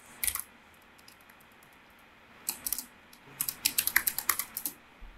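Typing on a computer keyboard: a few keystrokes just after the start, then a quick run of keystrokes from about halfway in until near the end.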